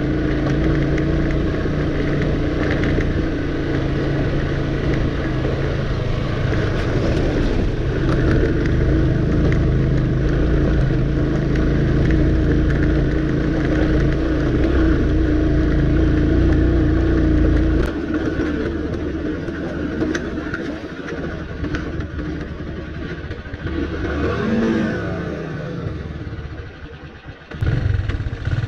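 Motorcycle engine running steadily while riding a rough dirt road. About two-thirds of the way through, the engine sound drops and thins as the throttle eases off. Near the end it falls away briefly, then picks up again.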